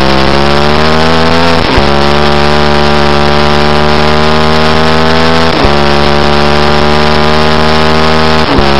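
Middleweight supersport racing motorcycle engine at full throttle, recorded onboard, with its pitch climbing and dipping sharply three times as it shifts up: about two seconds in, midway, and near the end. Heavy wind rush throughout.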